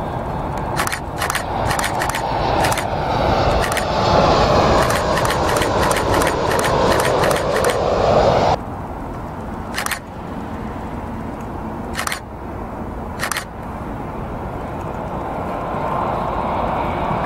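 Boeing 737 MAX 8 jet airliner on short final coming in low, its engine noise building to a loud rush with a falling whine, with sharp clicks scattered through it. About eight seconds in the sound cuts off abruptly to fainter, steady jet noise. Near the end the engine noise of another twin-engine widebody on approach grows louder, with a faint rising whine.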